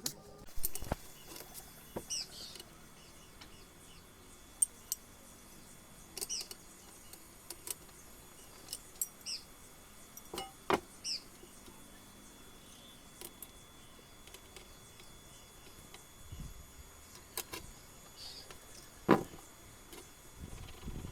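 Scattered light clinks and knocks of hand tools and small metal parts being handled, a couple of them sharper, with short high bird chirps every second or two.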